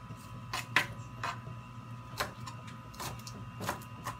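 Kitchen knife slicing garlic cloves on a cutting board: irregular sharp taps as the blade strikes the board, about seven in four seconds.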